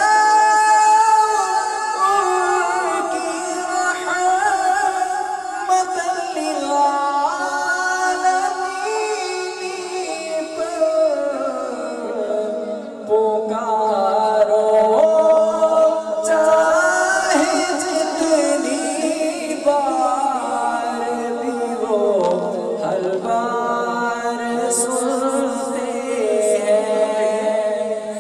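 An unaccompanied male voice sings a naat, an Urdu devotional poem, in long, drawn-out melodic lines that glide up and down, with several voice lines heard together.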